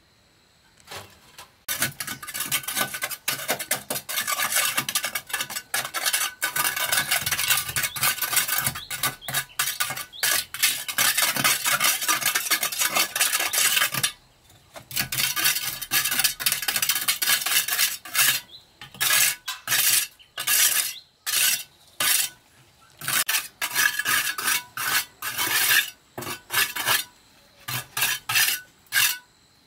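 A metal hand tool scraping against a brick wall in rapid repeated strokes, nearly continuous at first, then after a brief pause about halfway through in separate strokes roughly once a second.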